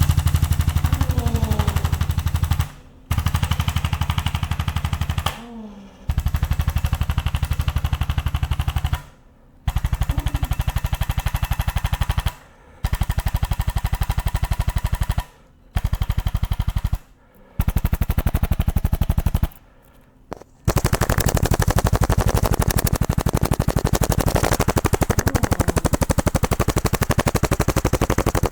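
Handheld electric percussion device hammering in a fast, even stream of pulses. It stops briefly and starts again about seven times.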